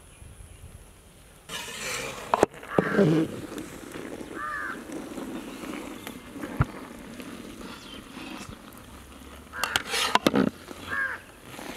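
Crows cawing a few times. Between the calls a metal ladle scrapes and turns steamed biryani rice in a large steel pot, with two louder clattering scrapes about 2 and 10 seconds in.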